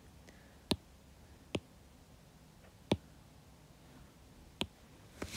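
Stylus tip tapping on an iPad's glass screen: four short, sharp clicks at uneven intervals.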